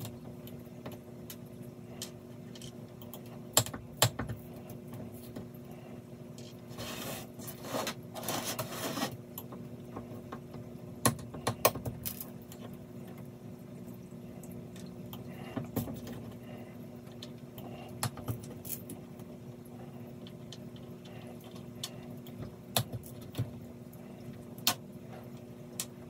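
Scattered light clicks and taps as a spatula pries small stick-on bumper feet off glass cutting boards and they are set down on the table, with a brief scraping stretch about a third of the way through. A faint steady hum lies underneath.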